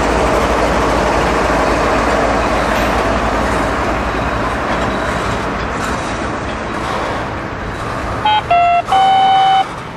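Double-stack container well cars of a freight train rolling past close by: a steady rumble and clatter of steel wheels on rail that slowly fades. Near the end a loud pitched tone sounds three times in quick succession.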